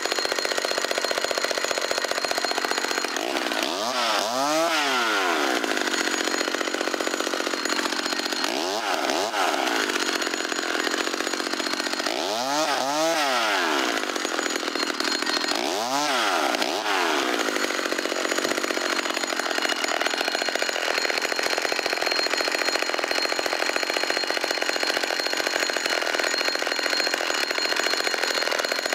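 Small two-stroke McCulloch Mini Mac 35 chainsaw running throughout as it cuts kindling, its engine speed swinging up and back down about four times.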